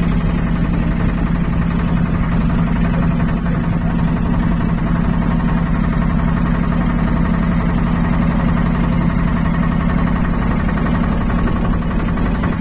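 Motorboat engine running steadily at a constant pitch, heard from on board.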